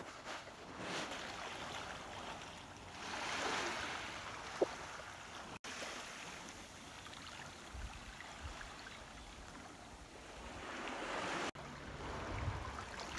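Small waves washing gently onto a sandy beach, a soft steady wash that swells up twice.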